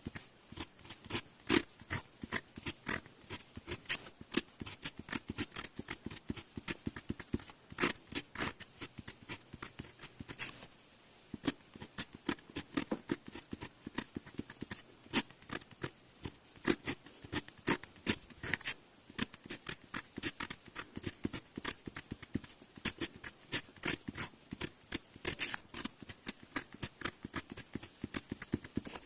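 Glass pen nib scratching and tapping across paper in quick short strokes while writing kanji, with a short pause about ten seconds in.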